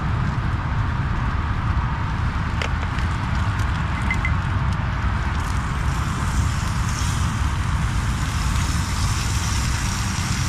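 Steady rumble of road traffic mixed with a camping stove burning under a frying pan, with a faint sizzle of oil; no single event stands out.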